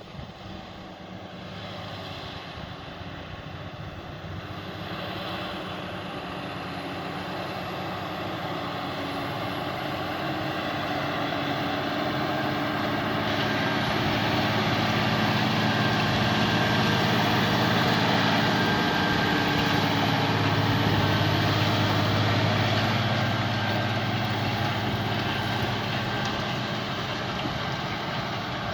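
Tractor engine working under load while ploughing. It grows steadily louder as the tractor comes closer, is loudest about two-thirds of the way through, then fades a little as it moves away.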